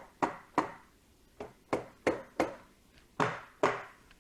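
Rubber mallet knocking on the clutch cover of a 2022 Honda Grom's engine, about eight sharp knocks at an uneven pace, to work the cover loose once its bolts are out.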